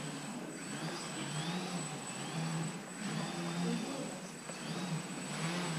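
Small electric RC model airplane's motor and propeller buzzing in flight, the pitch repeatedly rising and falling.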